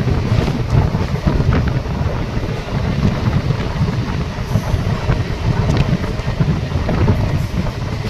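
Wind buffeting a microphone held out of the window of a moving passenger train, over the steady rumble of the coaches running on the track.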